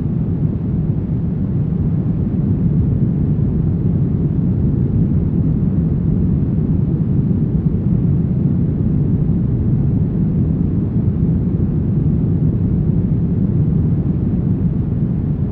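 Brown noise: a steady, deep, unchanging rush with most of its weight in the bass and little treble.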